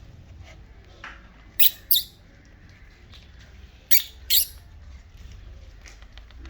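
Pomeranian puppy giving short high squeaky yips, two quick pairs about two seconds apart.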